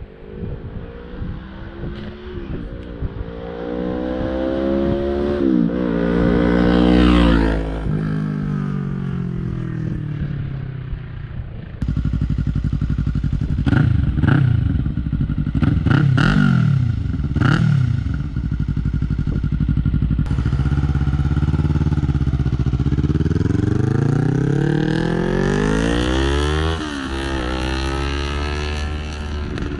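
Yamaha YZF-R3's parallel-twin engine through an Arrow Pro-Race full exhaust system. The revs climb and then fall away, then three sharp rev blips come about a second and a half apart, then a long climb in revs ends with a drop in pitch near the end.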